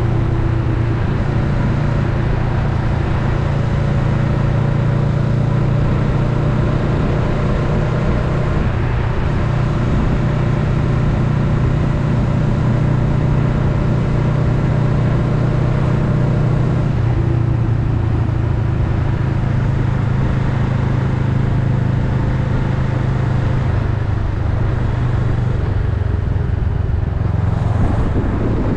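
Honda Rebel 500's parallel-twin engine running at a steady cruising pace while riding, with wind and road noise.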